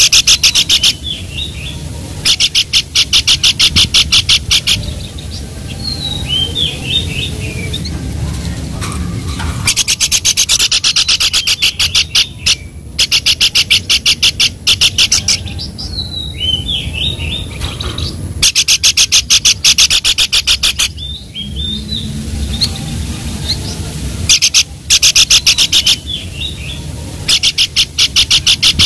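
Babbler (pelanduk) calls: bursts of rapid rattling trills, each a few seconds of fast, even ticking notes, alternating with short whistled notes.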